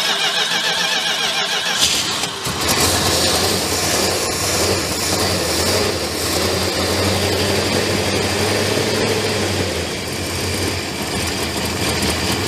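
1969 Dodge Charger's V8 engine cranking on the starter for about two seconds, then catching and running at a rough idle on seven of its eight cylinders, one spark plug not yet fitted.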